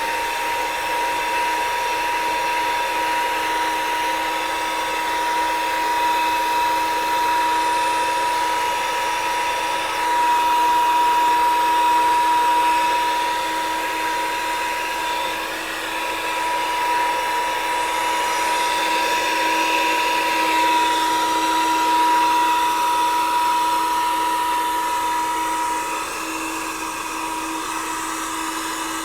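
Cheap 12-volt handheld car vacuum cleaner, powered from the cigarette-lighter socket, running continuously with a steady high-pitched motor whine; very noisy. Near the end the high whine drops away, leaving the lower motor noise.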